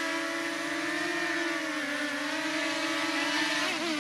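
Multirotor camera drone's propellers humming steadily, the pitch drifting slightly, then wobbling and starting to drop near the end.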